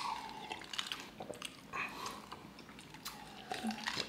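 Quiet sipping and mouth sounds from drinking iced wine out of glasses, with a few light clicks of ice against glass.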